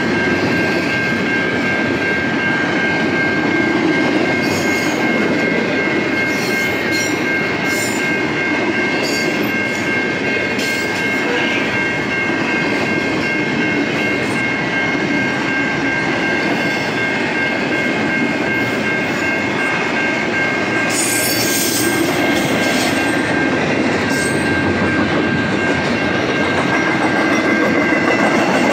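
Double-stack intermodal freight train rolling past at a level crossing: a steady rumble with irregular clicking and clatter from the wheels, and a steady high ringing tone throughout.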